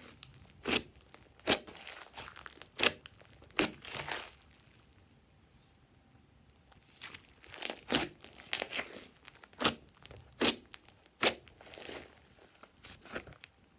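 Hands stretching, folding and squeezing a large mass of slime, giving irregular sticky pops and crackles as it pulls apart and air pockets burst. The pops come in clusters, with a quieter lull a little before the middle.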